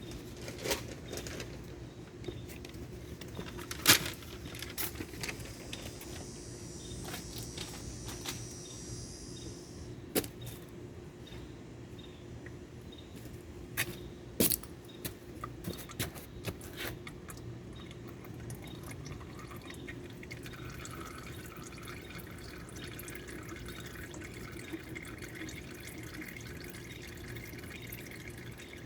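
Diesel engine oil draining from the sump of a Porsche Cayenne diesel into a drain pan, a steady trickle and drip, with scattered sharp clicks and knocks of handling.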